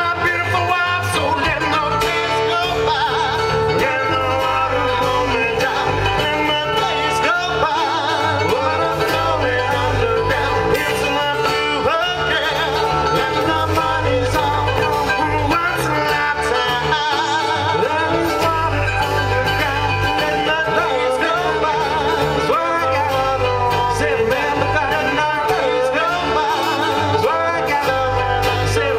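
Live bluegrass-style acoustic band playing through a PA: strummed acoustic guitar, mandolin and bass guitar, with a man singing.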